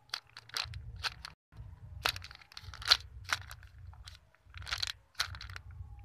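Clear zip-lock plastic bag crinkling and crackling as a foam mango squishy is squeezed and turned inside it by hand, in short irregular crackles about two or three a second, over a faint low background rumble.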